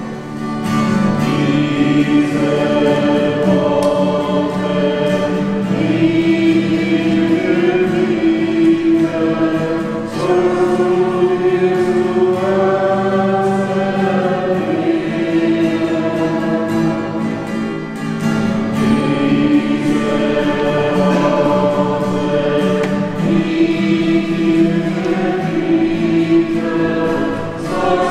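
A choir singing a slow hymn in long held chords, the phrases pausing briefly a few times.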